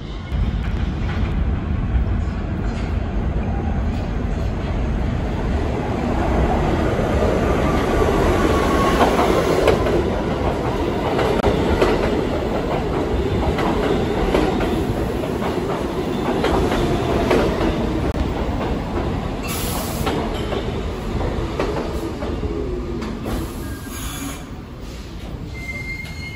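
New York City Subway train running into an underground station: a heavy rumble with wheels clacking over rail joints. A falling whine comes in twice as it slows, and the noise eases off near the end as the train stops at the platform.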